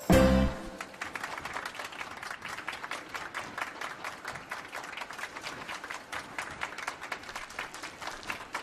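A short low thump at the very start, then a crowd applauding steadily.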